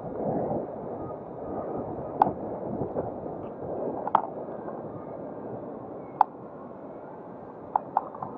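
Muffled rushing of wind on the microphone of a camera riding on a moving power wheelchair, swelling and fading, with a few sharp clicks and knocks as the chair rolls over bumps in the street.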